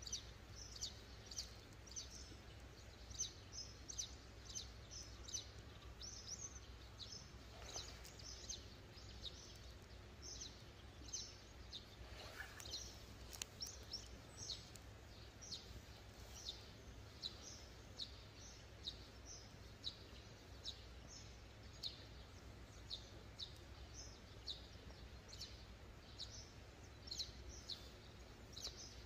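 Faint, repeated short high chirps of a small bird, about one or two a second and evenly kept up, over a low steady background hum.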